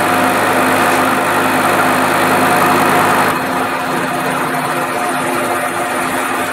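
Milling machine running with its cutter taking a facing cut across a cylinder casting held in the vise: a steady machine drone over a hissing cutting noise. About three seconds in the sound gets quieter and the high hiss drops away, while the machine keeps running.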